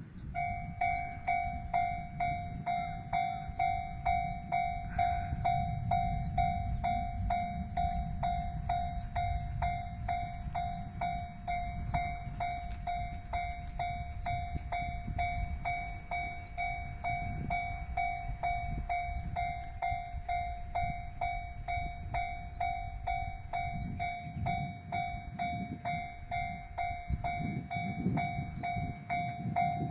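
Japanese railway level-crossing alarm starting up about a second in and ringing on in an even, rapid rhythm of single pitched strikes, over a low rumble that swells near the end.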